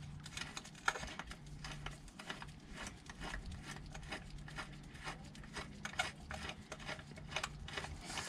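Faint, irregular small clicks and scrapes of a bolt being threaded by hand into a car's oil pan while the pan is held in place, with a faint low hum underneath.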